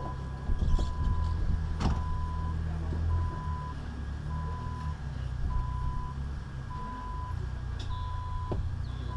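An electronic warning beeper sounds at one steady pitch, repeating evenly about once a second, over the low rumble of an off-road 4x4 engine running. A few short knocks come through, the sharpest about two seconds in.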